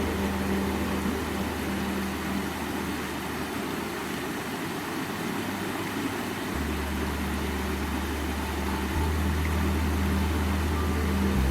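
Ambient relaxation music: low sustained drone notes that step to a new pitch a few times, over a steady rushing noise.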